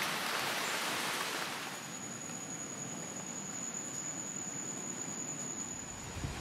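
Heavy tropical rain pouring on foliage, a steady hiss that softens after about two seconds. A thin, high, steady tone sounds over the hiss for about four seconds, stopping shortly before the end.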